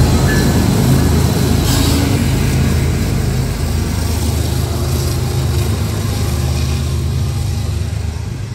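CSX freight train's diesel locomotives passing close by, their engines giving a deep, steady drone that slowly fades as the last unit goes by and the loaded hopper cars start rolling past.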